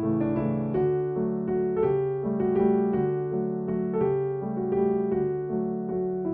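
Background music: a gentle piano melody with steady notes.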